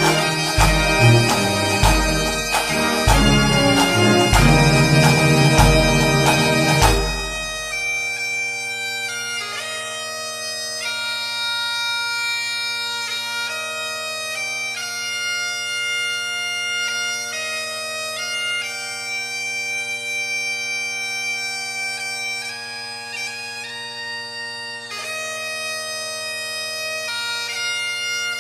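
Bagpipe music. For the first seven seconds or so it is backed by a heavy drum beat of about one beat a second. After that the pipes play alone, with their drones held steady under the chanter melody.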